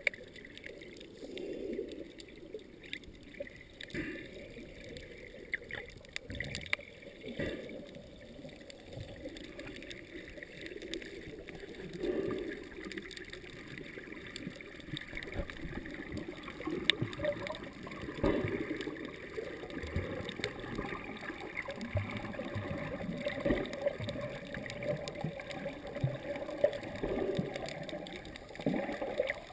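Muffled underwater water noise picked up by a submerged camera: a continuous gurgling wash of moving sea water with scattered small clicks.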